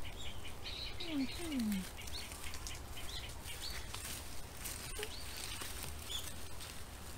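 Small birds chirping on and off in the background, over the faint scratch and rustle of gloved hands digging in soil and dry grass.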